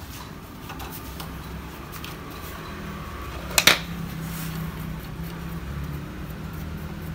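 Metal-on-metal work at a scooter's rear shock absorber mounting, with one sharp metallic clink about halfway through and a few faint clicks, over a steady low hum.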